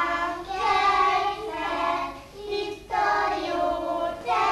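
A group of young children singing a Hungarian children's game song together, in short phrases of about a second and a half each.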